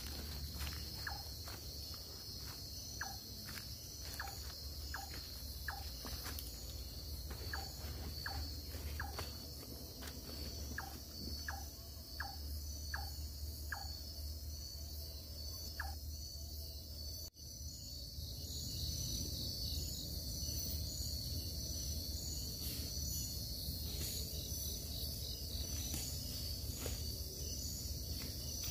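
Night-time tropical forest insect chorus: a steady, high-pitched shrill of crickets and other insects. Through the first half a short falling chirp repeats about twice a second, then stops about halfway through.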